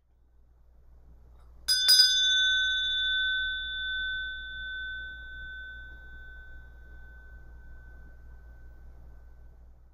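A meditation bell struck twice in quick succession, then ringing out in a clear high tone that fades slowly over about eight seconds, marking the end of a period of silent meditation. A faint low hum lies under it.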